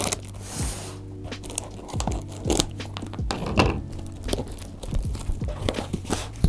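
Packing tape on a cardboard shipping box being cut with scissors and torn loose, then the cardboard flaps pulled open. It makes a run of short, irregular crinkling and tearing noises.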